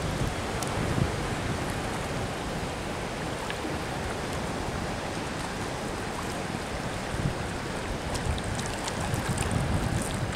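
Sea water sloshing at the surface, with wind on the microphone. A few small splashes near the end, where the hooked black sea bream stirs the surface.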